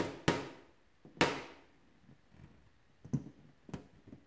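Stud earring post tapping and jabbing the taut skin of an inflated latex balloon: three sharp knocks with short ringing tails in the first second and a half, then a few faint clicks and rubbing sounds.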